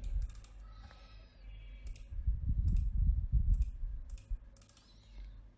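Computer mouse buttons clicking about ten times at irregular intervals, with a low rumble partway through.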